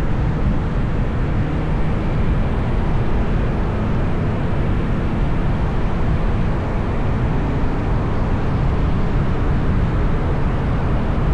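Steady road traffic noise: a continuous low rumble of vehicles with no distinct events.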